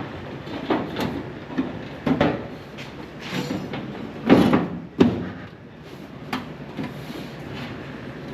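Irregular knocks, clanks and scrapes of sheet-metal body panels being handled, the loudest a pair of bangs about four and five seconds in.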